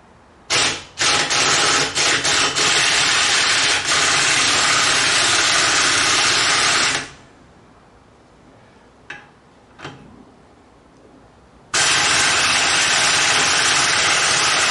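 Pneumatic impact wrench hammering in reverse on a car lug nut: a short trigger blip, then about six seconds of continuous hammering with a few brief breaks, two short blips, and a second run starting near the end. The lug nut being removed turns out to be cross-threaded.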